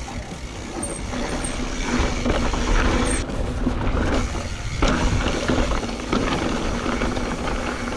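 Mountain bike riding fast down a loose, stony dirt trail: tyres crunching and rattling over gravel and rocks, the bike clattering, with a steady low rumble. It gets louder about two seconds in.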